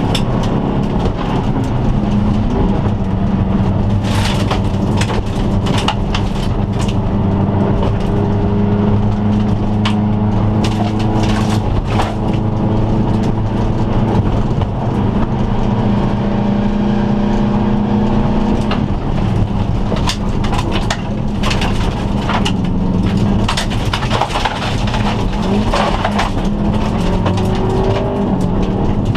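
Turbocharged flat-four engine of a 2002 Subaru Impreza turbo wagon running hard, heard from inside the cabin, its pitch climbing and dropping several times with gear changes. Frequent sharp cracks and knocks from gravel and the rough road hit the car's body throughout.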